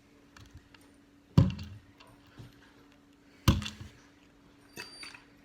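Two sharp knocks on a hard surface, about two seconds apart, then a few lighter clicks near the end, over a faint steady hum.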